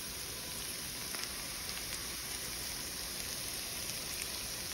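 Diced potatoes and onions sizzling in butter in a cast-iron skillet: a steady frying hiss with a few faint pops and crackles, left to cook undisturbed.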